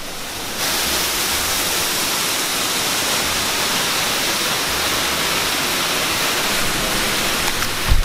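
Waterfall rushing: a steady, even noise of falling water, a little quieter for the first half second.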